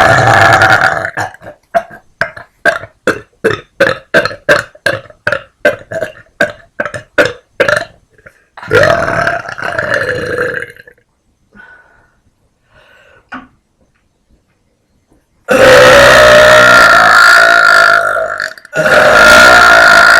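A young woman's loud forced burps, made by swallowing air. One burp comes at the start, then a quick string of about twenty short burps at roughly three a second, then another burp. Near the end comes one long, very loud burp of about three seconds, followed by another.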